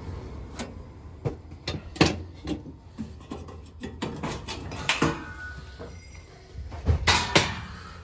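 Sheet-metal access panels of a Trane XR80 gas furnace cabinet being handled and taken off: a string of light metal clicks, knocks and scrapes, loudest about two seconds in and again around seven seconds in, over a faint steady low hum.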